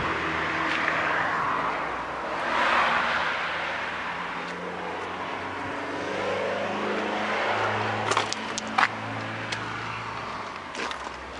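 Motor vehicle noise: a steady running sound that swells about three seconds in, with a few sharp clicks near the end.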